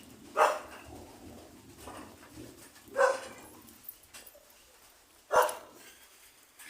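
An animal gives three short, sharp calls, evenly spaced about two and a half seconds apart.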